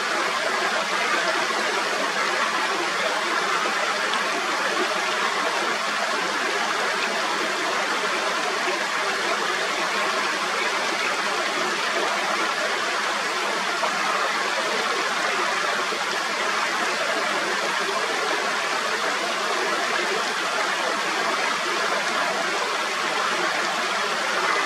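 Mountain stream water rushing steadily over rocks, an even unbroken rush of water.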